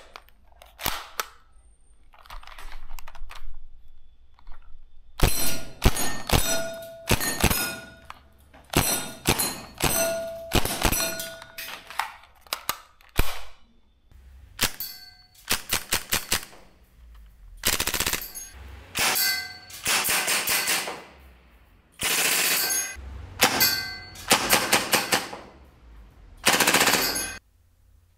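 Marzen Ingram M11 gas blowback airsoft submachine gun firing rapid strings of shots, its bolt cycling with each shot, while the steel target plates ring as the BBs hit them. The first few seconds hold only a few handling clicks; the shooting starts about five seconds in.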